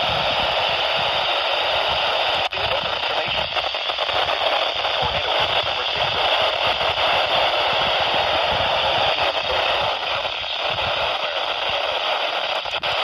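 Weather radio receiver hissing with static on a weak signal, a steady band of noise, with a brief dropout about two and a half seconds in.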